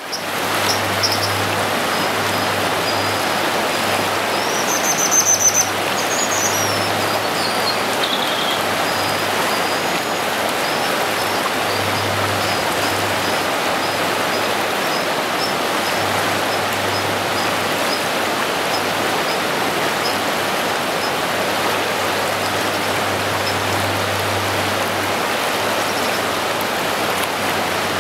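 Fast river water rushing steadily, with high, thin bird calls over it: short chirps repeating through roughly the first twenty seconds, and a few louder sliding notes about five to nine seconds in.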